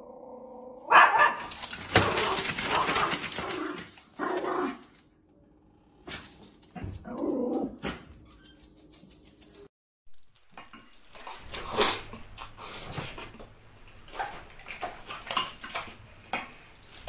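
Dogs barking and vocalising across several short clips, with abrupt cuts between them and a brief silence about ten seconds in.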